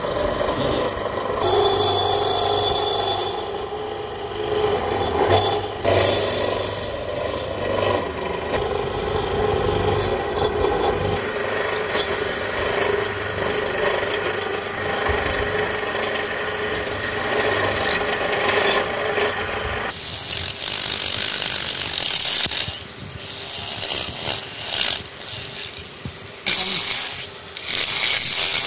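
A drill bit boring into a block of wood: a steady grinding and scraping as the bit cuts and chips are pushed out, changing in character partway through.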